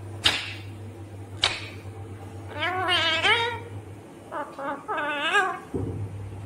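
Indian ringneck parrot calling: two short sharp squawks in the first second and a half, then two longer wavering, quavering calls around three and five seconds in.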